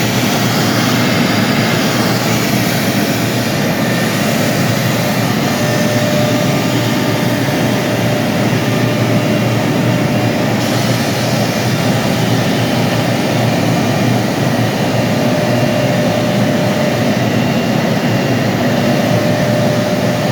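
CNC milling machine running steadily through a cut: a loud, even machine noise with faint whining tones that come and go.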